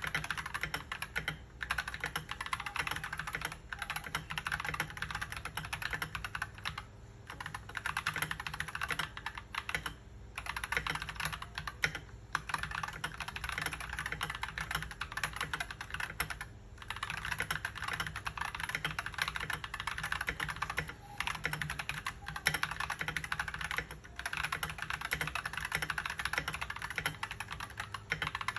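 Fast continuous typing on an Akko 3098 mechanical keyboard with stock Akko CS Ocean Blue tactile switches and ASA-profile PBT double-shot keycaps, a dense run of key clacks broken by short pauses every few seconds.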